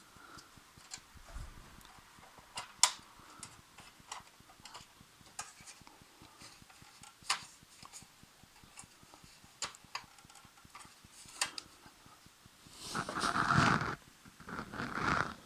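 Scattered light clicks and taps of hands working on a disassembled laser printer's parts, then two longer, louder noises near the end.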